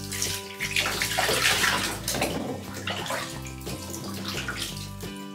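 Bathwater being poured from a plastic bath cup over a doll and splashing into a shallow tub, in several short pours and splashes over the first three seconds.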